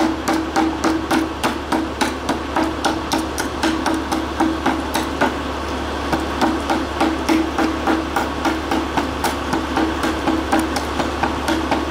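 Long-nose pliers tapping and chipping leftover glass from a CFL's broken tube out of its plastic base: a steady run of sharp clicks and cracks, about three or four a second.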